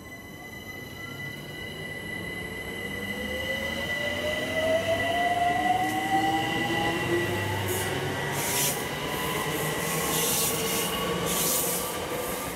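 London Overground Class 378 electric train passing close by and pulling away, its traction motors whining in several tones that rise steadily in pitch as it accelerates. Wheel-on-rail noise with high squeals comes in near the end.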